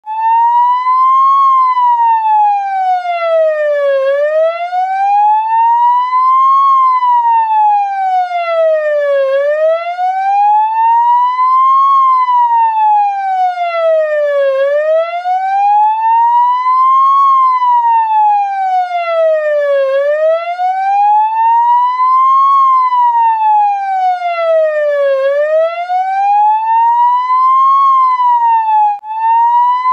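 Ambulance siren on a slow wail, its pitch rising for about two and a half seconds and falling for about two and a half seconds, over and over. Near the end it breaks off briefly and picks up again at a higher point in the cycle.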